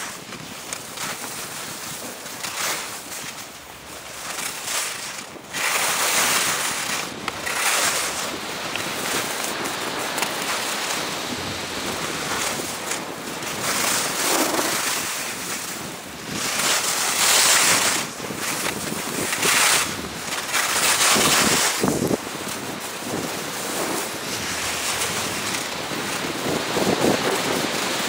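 Skis scraping and hissing on snow through a run of turns, swelling into louder rushes every second or two, with wind blowing over the action camera's microphone.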